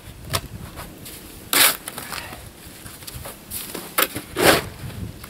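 Snow shovel scraping and crunching into snow in a few short strokes, the loudest about one and a half seconds in and again about four and a half seconds in.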